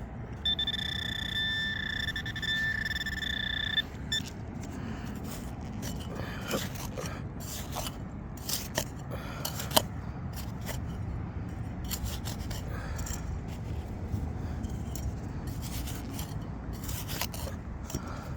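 A metal detecting pinpointer sounds a steady high tone for about three seconds as it picks up a target in the dug hole. After that, soil is scraped and sifted while digging, with scattered clicks and scrapes.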